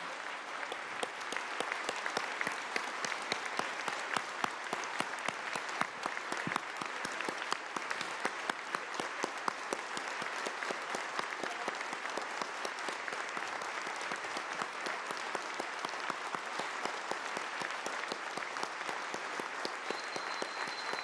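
Large audience applauding steadily: sustained clapping from a big crowd in a hall, a minute of applause given in homage.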